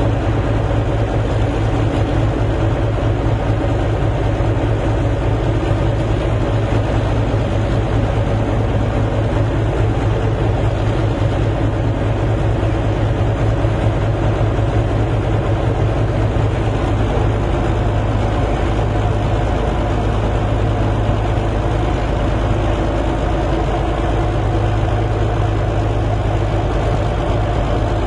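A heavy engine running steadily at an even pace, a constant low hum with no changes in speed.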